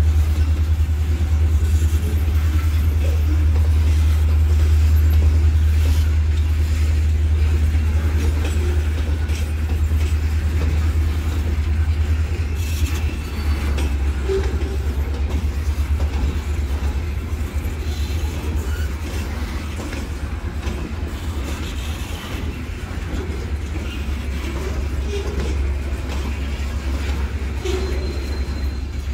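Florida East Coast Railway freight train's hopper cars rolling past, a steady low rumble of wheels on the rails with a few faint clicks.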